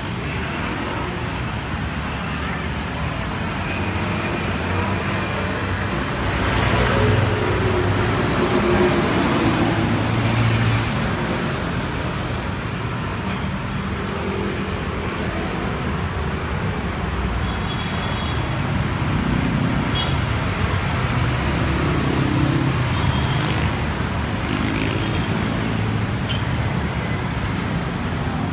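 Steady city street traffic: cars and other motor vehicles running past, swelling louder for several seconds as a vehicle passes close about six seconds in, then settling back to a constant rumble.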